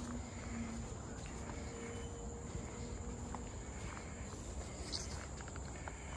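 Steady high-pitched drone of forest insects, with faint footfalls on a dirt trail.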